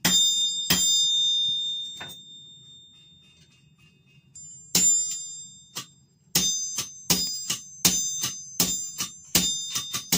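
Hammer blows on a Kohlswa anvil, each strike ringing with a high, bright tone. There are a few single strikes near the start, the ring dying away, then a steady forging rhythm of about three blows a second, alternating louder and softer strikes, as a sledgehammer comes down on the work.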